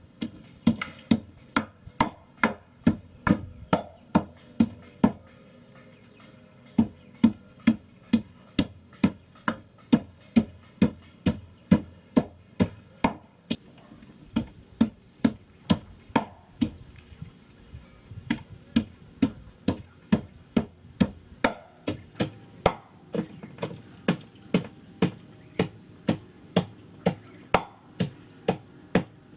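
Wooden pestle pounding ginger in a metal mortar pot, steady thuds about two a second, with a short pause about five seconds in.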